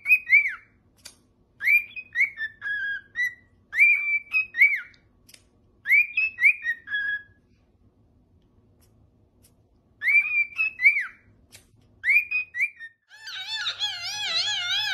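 A parrot whistling a short rising-and-falling phrase over and over, with a pause in the middle. Near the end it switches to a wavering, warbling whistle.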